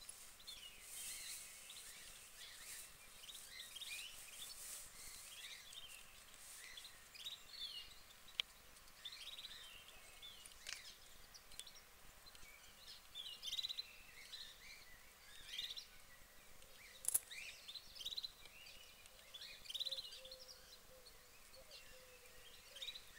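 Faint songbirds chirping, with many short calls repeated throughout. Two sharp clicks stand out, one about eight seconds in and a louder one about seventeen seconds in.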